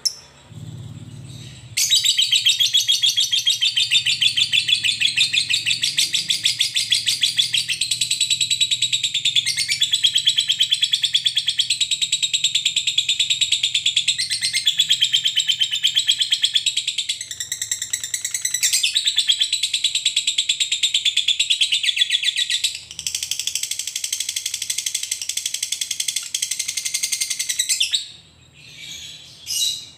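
Fischer's lovebird singing a long 'ngekek': a rapid, unbroken chattering trill of high, shrill notes. It starts about two seconds in, runs on for some twenty-five seconds, and stops abruptly near the end, leaving a few scattered chirps.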